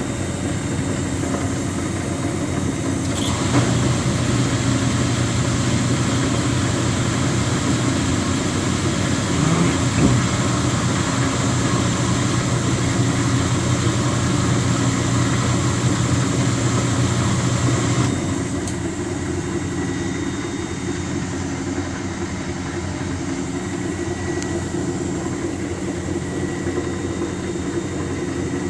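Speed Queen TR washer running: a steady mechanical hum that grows louder and brighter a few seconds in and drops back about two-thirds of the way through, with a sharp knock near the middle. The noise comes from play in the drive pulley on its shaft, its pulley nut having worked loose.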